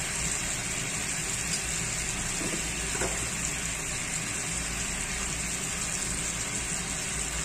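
Marinated chicken pieces sizzling steadily in butter and oil in a frying pan over medium heat.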